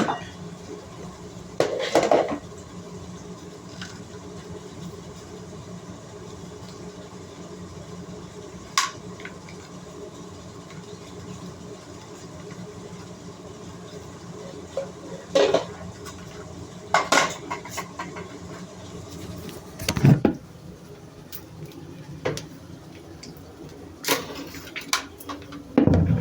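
Plastic vacuum-cleaner filter and parts knocking and clattering now and then while being washed. There are about eight short knocks over a steady background, the loudest about twenty seconds in.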